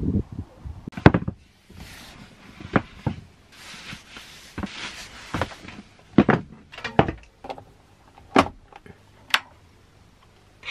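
About ten sharp knocks and clunks, with rustling in between, as things are handled and moved about inside a campervan. It goes quiet about a second before the end.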